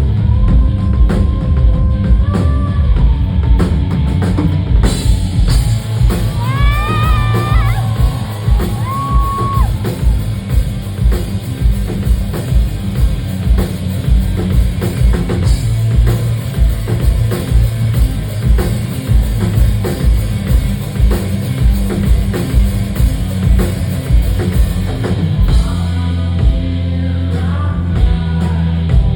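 Rock band playing live: the drum kit keeps a steady beat under bass and guitars. Sung vocal lines come in the first ten seconds or so and again near the end.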